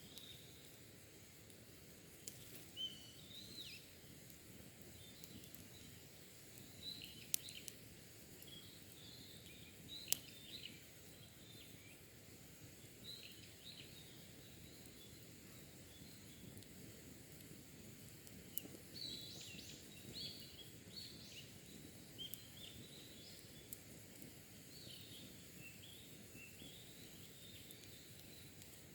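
Faint wild birdsong: short chirps and calls from several birds, with a low background hush. A couple of sharp pops, around 7 and 10 seconds in, fit a campfire crackling.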